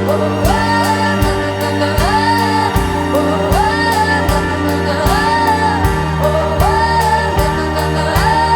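Music: a pop song's passage between sung lines, with a steady beat and a short rising-and-falling melodic phrase repeated over and over.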